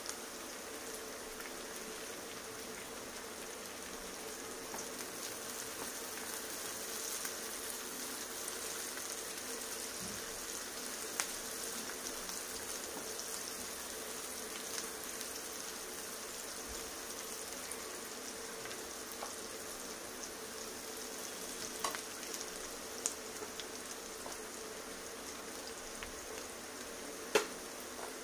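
Chopped onion and green capsicum sizzling steadily as they fry in oil in a nonstick pan, with a few light clicks of a silicone spatula against the pan as they are stirred; the loudest click comes near the end.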